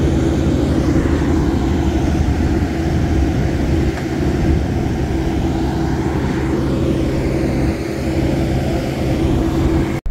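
Turboprop engine of an ATR airliner running steadily on the ground: a loud, even hum with a strong steady tone. It cuts off suddenly near the end.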